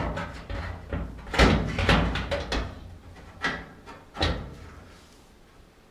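Clunks and knocks of a clothes dryer's sheet-metal parts being handled and fitted back into the cabinet. There are about five sharp knocks in the first four seconds, and then it goes quiet toward the end.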